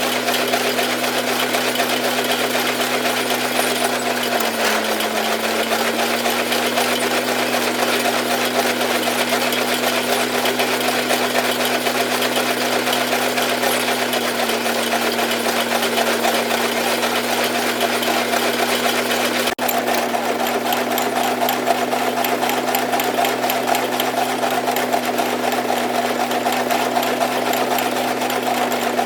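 Welger AP51 square baler running behind a tractor: a steady engine hum under a fast, even mechanical clatter, with a brief break about two-thirds of the way through.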